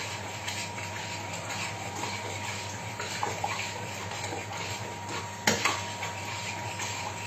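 Spoon stirring thick caponata in a stainless steel pot, with soft scraping and knocks against the pot, over a faint steady hum. One sharp clack against the pot about five and a half seconds in is the loudest sound.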